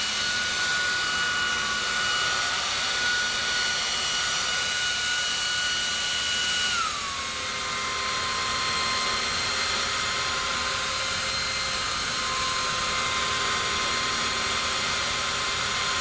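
TOCMOC T200 cordless stick vacuum running with its carpet brush head on carpet: a steady high motor whine over a hiss of air. The whine drops in pitch about seven seconds in, then holds steady.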